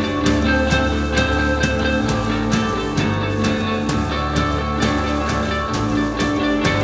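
Rock band playing live without vocals: two electric guitars, electric bass and a drum kit keeping a steady beat.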